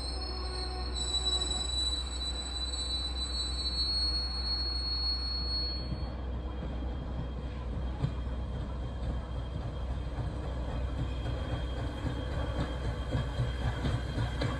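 Passenger coaches rolling slowly on the rails, their wheels squealing in high steady tones on the curve for the first six seconds or so, then fading to a low rumble of wheels on track with light clicks and knocks as the steam locomotive draws near.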